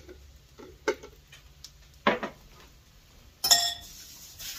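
Kitchen clatter of a glass jar and utensils: a few light clinks and knocks, then a louder metallic clank with a short ring about three and a half seconds in. The kitchen faucet then starts running water in a steady hiss.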